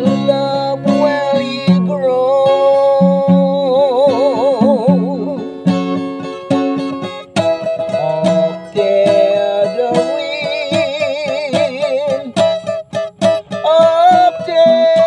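A man singing in long held notes with a wide vibrato over a strummed acoustic guitar, with a short run of quick, choppy strums shortly before the end.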